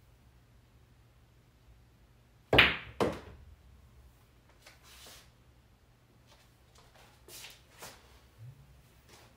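Pool cue tip striking the cue ball with a sharp click, then about half a second later the cue ball clacking into an object ball, which is potted. Fainter knocks and clicks follow as the balls roll and settle.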